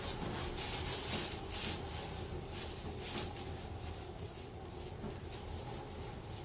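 Soft rustling and rubbing as a patient is handled on a chiropractic treatment table, with one short sharp click about three seconds in, then only a faint steady hiss.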